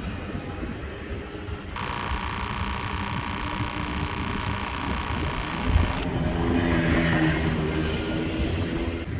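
Canon EOS R3 firing a continuous high-speed burst, a rapid even shutter chatter that starts about two seconds in, runs for about four seconds and cuts off abruptly. After it, small go-kart engines are heard passing.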